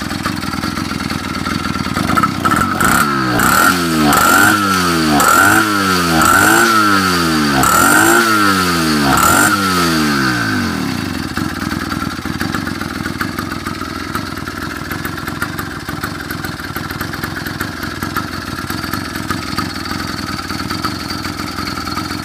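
80cc two-stroke motorized-bicycle engine idling, then revved in about six quick throttle blips, each pitch rising and falling back, before it settles to a steady idle again.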